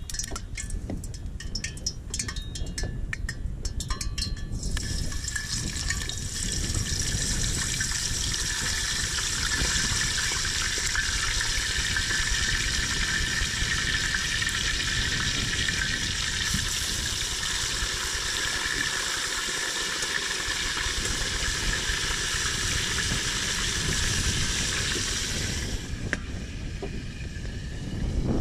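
Seasoned whole fish frying in a pot of hot oil: a steady sizzle starts suddenly about five seconds in, as the fish goes into the oil, and stops shortly before the end. Before it, wind on the microphone and a few light metal clicks.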